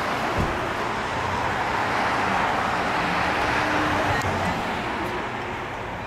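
Road traffic on a busy city street: vehicles driving past close by, a steady rush of tyre and engine noise that swells in the middle and eases off near the end.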